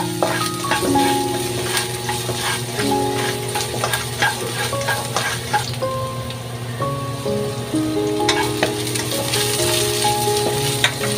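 Chopped garlic sizzling in oil in a non-stick wok, with many short clicks and scrapes as a spatula stirs it against the pan. Sliced red onion is added partway through and stirred in. Background music with held notes plays throughout.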